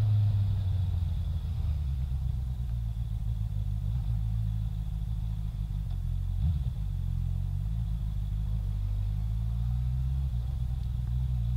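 Honda CB650R's inline-four engine running at low revs while the bike rolls slowly in town traffic: a steady low hum, with a brief shift in pitch about six seconds in.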